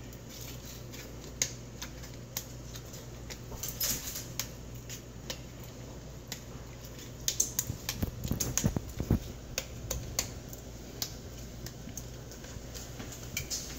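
Frozen dumpling dough strips being snapped into pieces and dropped into a pot of broth: scattered light snaps and clicks, busiest about eight seconds in. A steady low hum runs underneath.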